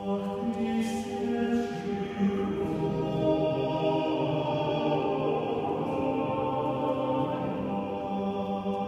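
Male vocal quartet singing a cappella in several parts, in slow, held chords.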